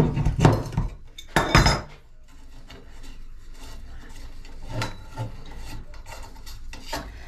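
Two loud metallic clanks from an adjustable spanner, as it works the stiff fitting of a metal bait pump and is set down on the worktop. After that comes a quieter gritty rubbing as the long-undone threaded fitting is turned by hand, with a couple of small knocks.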